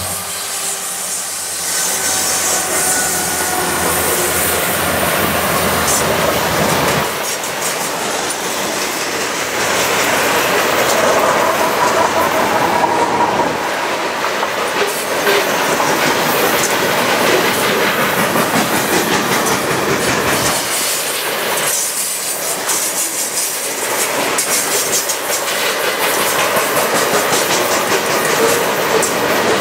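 Freight train of covered grain hopper cars rolling past close by: steady noise of steel wheels on rail with a running clickety-clack of wheels over the rail joints.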